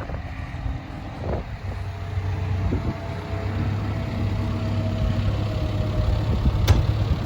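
John Deere 310SK backhoe loader's diesel engine idling, a steady low hum that comes in about a second and a half in. A single sharp click near the end.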